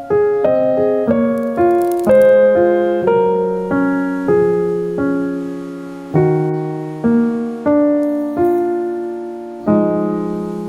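Gentle solo piano music: struck chords and melody notes, each ringing and fading before the next, about one every half second to second.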